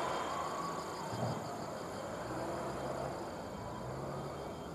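Insects chirping in a steady, pulsing chorus, over the low hum and rumble of a Tobu 8000-series electric train rolling slowly past.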